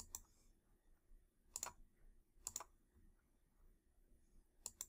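Faint computer mouse clicks, four over a few seconds, each a close pair of quick ticks, over a faint room hum.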